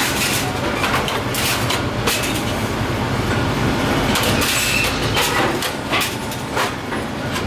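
Electric motor-driven rotary disc shear running with a steady hum while its discs trim the edge of a pressed sheet-steel fuel-tank half, with irregular metallic clicks and rattles from the sheet steel as it is fed and turned.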